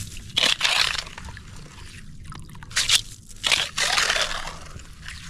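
Ice skimmer scooping slush and ice chips out of a freshly drilled ice-fishing hole: several wet, crunching scrapes and sloshes.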